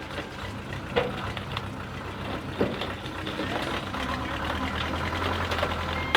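Diesel engine running steadily, with a couple of sharp knocks about one and two and a half seconds in; the low engine hum grows stronger about four seconds in.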